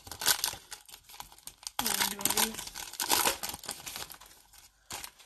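Foil wrapper of a Panini Mosaic basketball card pack crinkling and tearing as it is opened by hand, loudest from about two seconds in to three and a half seconds.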